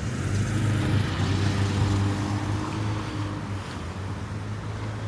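A motor vehicle's engine runs close by with a steady low hum, loudest in the first few seconds and then fading as it moves off, over general street noise.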